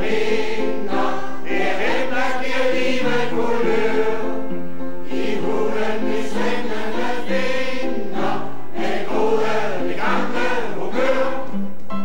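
A large amateur choir of older singers singing a song together in sustained, changing notes.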